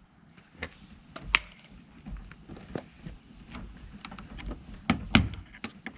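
Scattered clicks and knocks of metal tools and parts being handled while the old wiper spindle fittings are worked off. The sharpest knocks come about a second and a half in and again about five seconds in.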